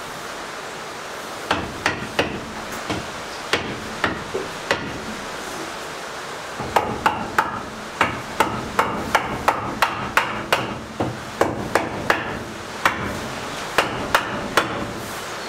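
Hammer blows on the wooden top rail of a sheep hurdle: scattered strikes at first, a short pause, then a quicker run of about three blows a second. A steady hiss of heavy rain runs underneath.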